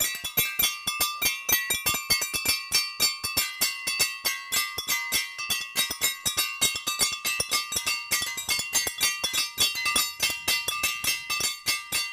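Music with a fast, even beat and steady ringing high tones held over it.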